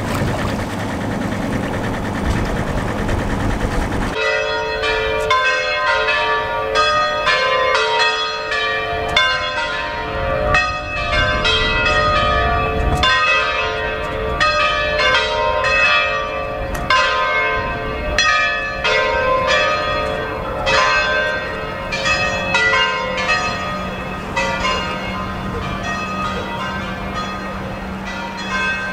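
Engine and wind noise, then about four seconds in church bells start ringing: a peal of several bells struck in quick, uneven succession, each stroke ringing on. A low steady hum returns under the bells near the end.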